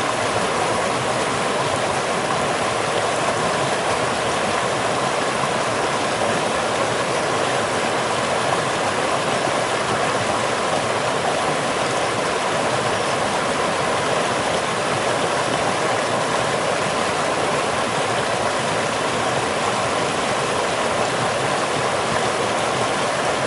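Running water rushing steadily, with no change or break.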